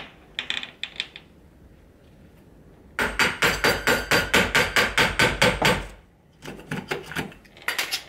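A hammer taps quickly on the chisel blade of a Ryobi door latch installation tool, driving it into the edge of a wooden door to cut out the latch recess. The taps run at about six a second for roughly three seconds, starting about three seconds in. A few lighter clicks and knocks of the tool against the door come before and after.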